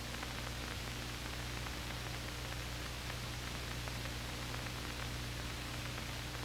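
Steady hiss with a low mains hum underneath: the background noise of an old film soundtrack, with no other sound.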